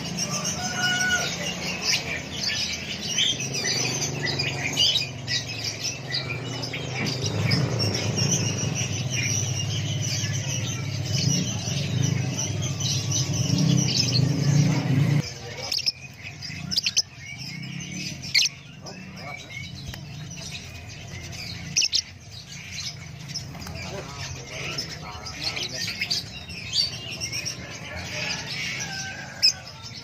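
Many caged lovebirds chirping, a dense run of short high calls. A low background murmur of voices runs under them for about the first half, then drops away suddenly.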